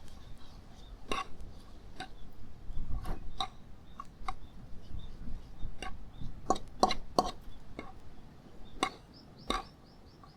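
Irregular light knocks and clinks of cooking utensils against cookware, a few with a short ringing tone, clustered about six to seven seconds in. Near the end a bird gives a quick run of high chirps.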